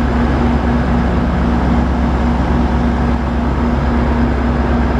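GO Transit diesel locomotive running close by: a steady low rumble with a constant hum that holds level throughout.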